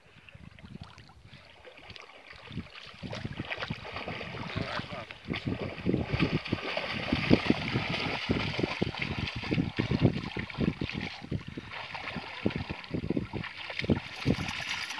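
Water splashing and sloshing as large Newfoundland dogs wade and paddle through shallow lake water, growing louder and busier about four seconds in.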